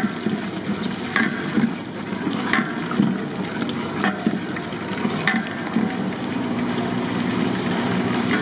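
Green masala paste sizzling in hot oil in a large metal pot, stirred with a long iron ladle that scrapes and knocks against the pot about once every second or so.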